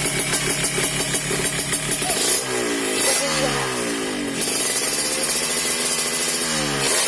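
Yamaha RX-King two-stroke single-cylinder motorcycle engine running with a fast, even popping. From about two seconds in it is revved in repeated blips, the pitch climbing and falling back each time.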